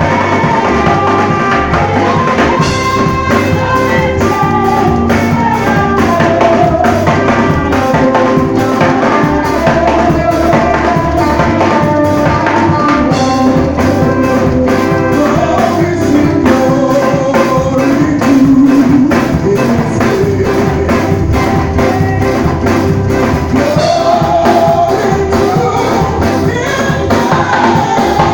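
Live church praise band playing: a drum kit keeping a steady beat under keyboard and guitar, with voices singing the melody.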